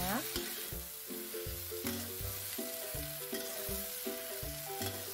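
Metal spatula stirring and scraping cassava leaves around a wok on low heat, with steady sizzling and a few sharp clicks of the spatula on the pan. Background music with a repeating bass line plays underneath.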